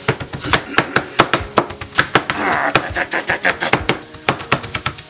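A large serrated knife chopping jalapeño and habanero peppers on a cutting board: quick, uneven knocks of the blade against the board, about five a second.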